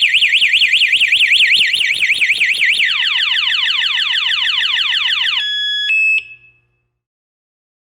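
GENSSI motorcycle alarm siren going off, set off by its shock sensor when the armed bike is tapped. It starts as a fast warble of about five rises and falls a second. About three seconds in it switches to quickly repeated falling sweeps, then to a steady high tone and a couple of short chirps, and it stops about six and a half seconds in.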